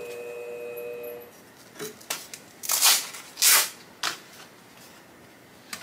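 Steady hum of a flat-hone shear-sharpening machine, which stops a little over a second in. It is followed by several short scraping and clattering handling sounds as the abrasive sharpening discs are picked up and swapped, two of them louder than the rest.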